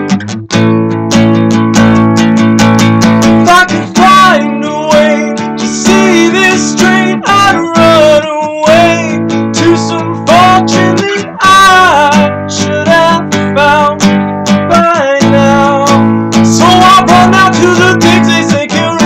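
Acoustic guitar strummed in a steady rhythm, with wordless singing over it from about four seconds in.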